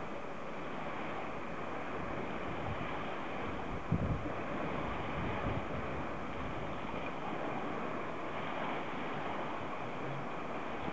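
Steady wind noise on the microphone mixed with the wash of lake water, with a brief low thump about four seconds in.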